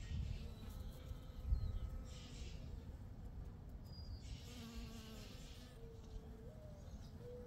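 Honeybee buzzing as it forages on lavender flowers: a faint, steady hum that wavers in pitch and rises briefly near the end, over a low rumble.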